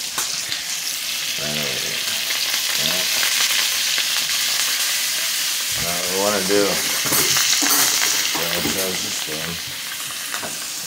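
Ribeye steak frying in butter in a pan: a steady sizzle throughout.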